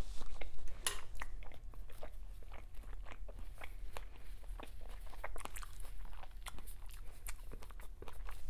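Close-miked mouth sounds of a person chewing food, a steady run of small irregular wet clicks and smacks, with one sharper click about a second in.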